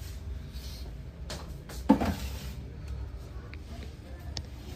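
A metal tin of fat set down with a single hard thunk and a brief ring about two seconds in, followed by a few lighter clicks and scrapes, over a steady low hum.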